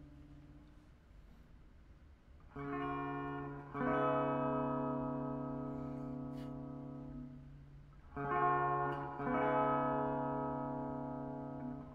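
Electric guitar (a 2012 Epiphone Les Paul Standard through a Marshall Origin 20 head and a Harley Benton 2x12 cabinet) playing chords on a clean tone and letting them ring. Two pairs of chords come in about 2.5 and 8 seconds in, and the second chord of each pair sustains and slowly fades.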